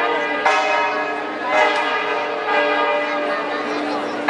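Church bells ringing, with a fresh stroke about once a second and several overlapping ringing tones.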